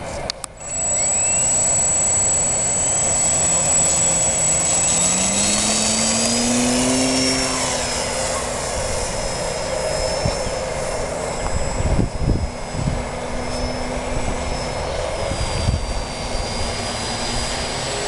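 ParkZone Albatros RC plane's electric motor and propeller throttling up sharply about half a second in for takeoff, then running as a steady high whine while the plane climbs and flies, its pitch gliding upward partway through. Wind buffets the microphone in low thumps now and then.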